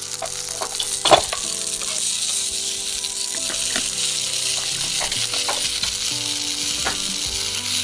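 Steady frying sizzle as the toy food is put on to cook, with a few light taps of plastic pieces, the loudest about a second in.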